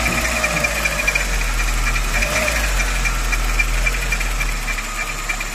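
Volkswagen Saveiro engine idling with a high-pitched, rapidly pulsing squeak from the accessory drive belt and pulleys. The squeak goes away when water is put between belt and pulley and returns as it dries, which points to a belt or pulley fault.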